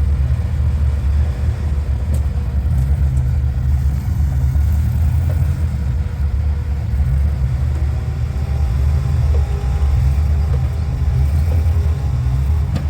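Off-road vehicle's engine running steadily at low revs, a deep continuous rumble.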